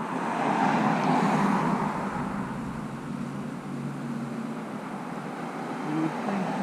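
Cars driving past on a road: one goes by loudest about a second in and fades, and the noise rises again near the end as another approaches.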